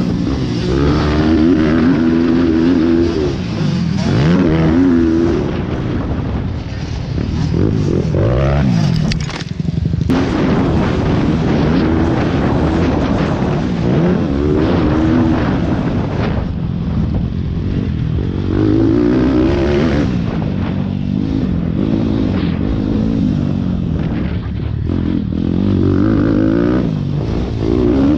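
Minibike engine heard from on board, revving up and dropping back over and over as the bike accelerates out of turns and shifts through its gears on a rough dirt track.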